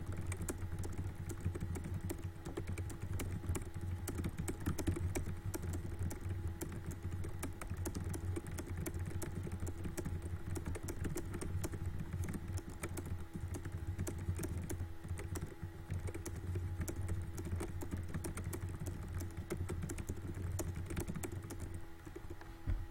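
Rapid, continuous typing on a computer keyboard, a dense stream of keystroke clicks at about 139 words per minute, over a steady low hum.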